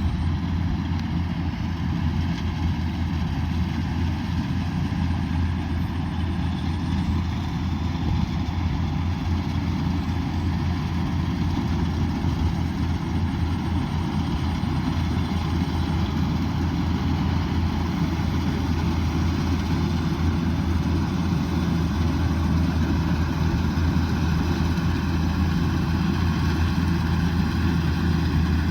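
Kubota DC108X combine harvester's diesel engine running steadily, a low, even drone.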